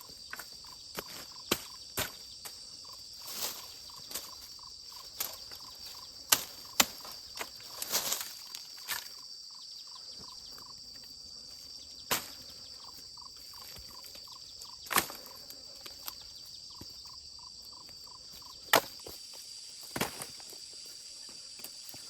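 Insects chirring steadily at a high pitch, with scattered sharp clicks and knocks every second or two.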